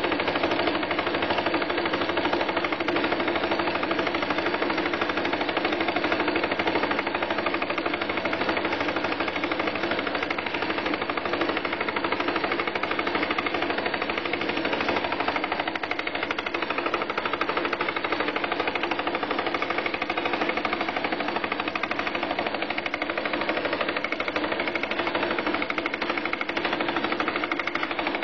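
Lathe-driven fly cutter taking an interrupted cut through an aluminium gear blank fed down from the top on a vertical mill slide, a fast, steady run of cutter strikes over the running lathe.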